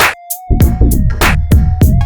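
Electronic background music with a heavy drum-machine beat, deep bass and a held synth line.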